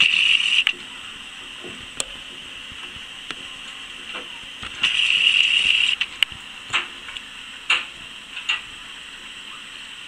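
Budgerigars chattering: a burst of chatter about a second long at the start and another about five seconds in, followed by a few short, sharp chirps.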